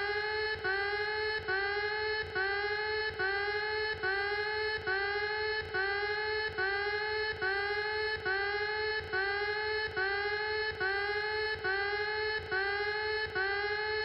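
Emergency-alert alarm tone repeating steadily, about once every 0.85 seconds: each tone slides up briefly and then holds a buzzy pitch, with a short gap before the next.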